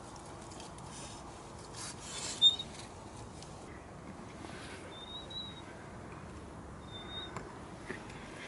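Soft rustling and scuffing of a landing net on a fabric unhooking mat, with one louder brush about two and a half seconds in. Twice later, a short high chirp from a small bird.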